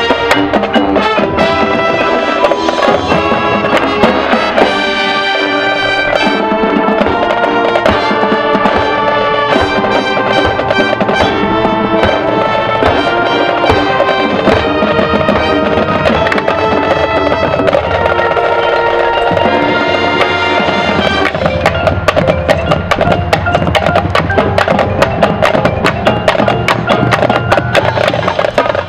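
Marching band playing its field show: brass and percussion sound sustained chords together. About two-thirds of the way through, the music turns to fast, busy percussion strikes under the band.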